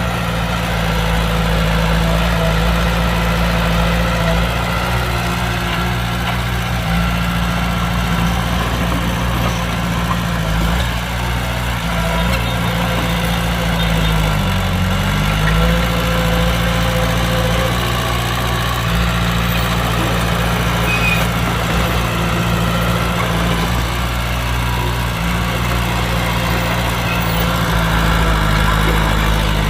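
Heavy diesel engine of earthmoving machinery running steadily, its pitch dipping briefly and recovering about halfway through.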